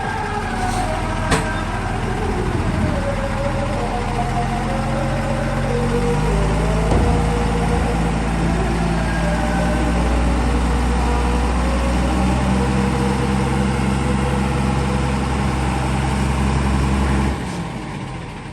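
Heavy diesel engine running steadily. It grows deeper and heavier about six seconds in, as if working under load, then drops off sharply near the end. A single sharp click comes about a second in.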